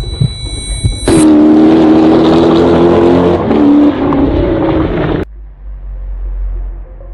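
Felino cB7 supercar's V8 engine running hard and loud, cutting in suddenly about a second in, with a short break in the middle, then cutting off abruptly; a quieter low rumble follows.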